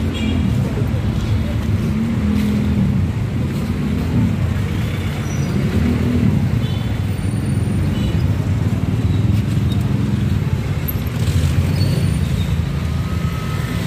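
Street traffic noise: motorcycles and other motor vehicles running past, a steady low rumble.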